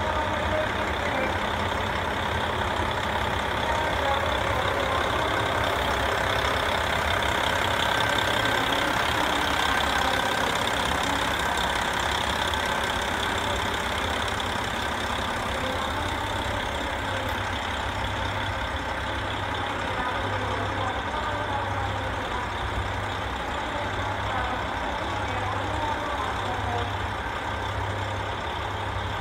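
KiHa 40 diesel railcars' engines idling, a steady diesel rumble with a slow, regular low throb in the second half.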